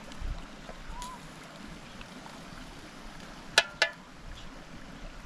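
Two sharp knocks about a quarter of a second apart, with a brief ring, over a low steady background noise.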